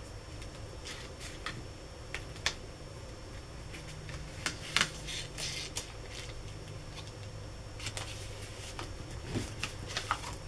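Cardstock and paper being handled and pressed together on a tabletop: scattered light ticks and taps with short rustles, as the layers of a handmade card are lined up.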